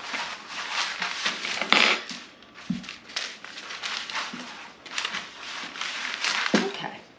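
Wooden rolling pin rolled back and forth over paper sheets folded around a round of dough, the paper rustling and crinkling with each stroke, with a light knock nearly three seconds in.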